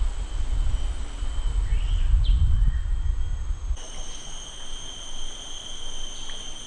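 Outdoor ambience. For the first half a low rumble like wind buffeting the microphone dominates; it stops abruptly a little past halfway. After that, a steady high-pitched insect drone carries on, with a few brief bird chirps.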